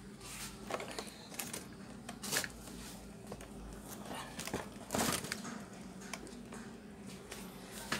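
Scattered light clicks and taps of hands handling the TV set while trying to power it on, with a louder knock about five seconds in.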